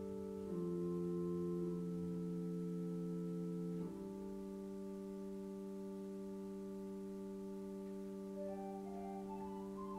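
Keyboard playing slow, held chords that sustain without fading, moving to a new chord about half a second in and again about four seconds in, with a few soft higher melody notes near the end.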